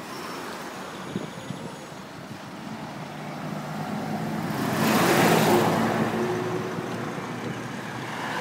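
Road traffic with an articulated city bus passing close by: its diesel engine swells to its loudest about five seconds in, then fades.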